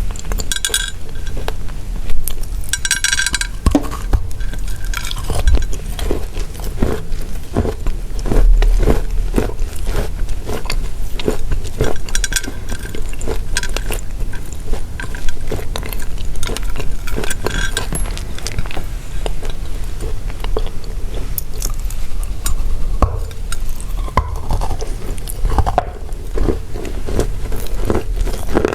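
Dry pressed chalk tiles being crunched, a dense run of crisp crackling clicks with a few brief clinks.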